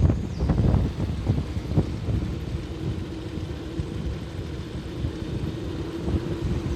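Vehicle running at low speed, heard from on board: a steady low rumble with a faint hum, the wind on the microphone easing off.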